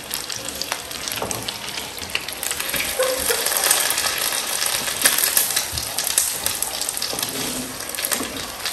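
Folded egg omelette sizzling steadily in a nonstick frying pan, the hiss a little louder in the middle, with a few light clicks and scrapes as a spatula presses and turns it.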